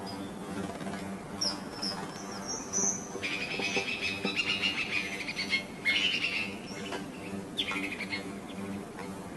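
Small birds chirping and twittering in bursts, loudest as a fast run of repeated notes in the middle, over a steady low hum.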